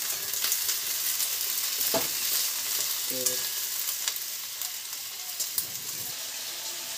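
Chopped onion and green capsicum sizzling in hot oil in a metal kadai, stirred with a steel spatula that scrapes and clicks against the pan a few times.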